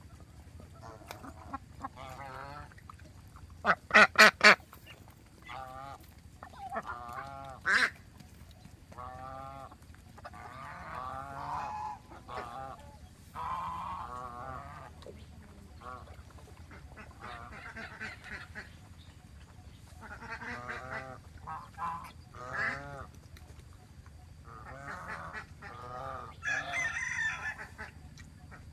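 Domestic geese honking over and over, a flock calling back and forth, with four loud honks in quick succession about four seconds in.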